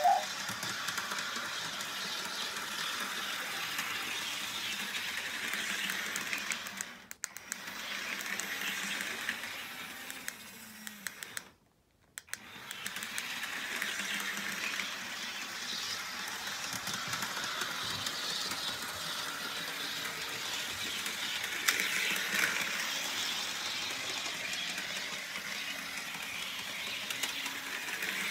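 HO scale electric model train running around the track, a steady whir of its motor and wheels on the rails. It fades about a quarter of the way in, cuts out briefly near the middle, then returns.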